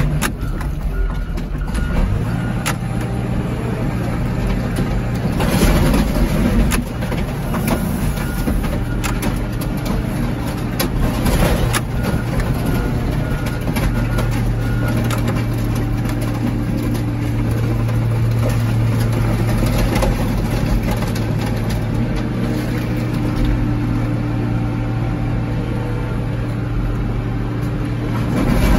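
Car crusher's engine and hydraulics running steadily under load as the lid presses a stack of junk cars flat, with the hum rising for a while in the middle and occasional sharp cracks of crumpling metal.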